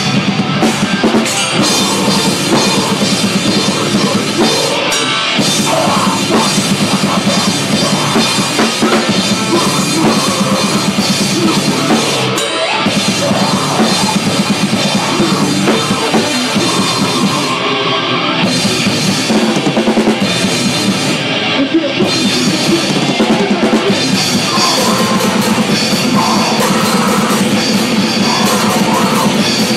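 A metal band playing live, heard close to the drum kit: the drums are loud and busy, with dense bass drum and cymbal strikes over the rest of the band.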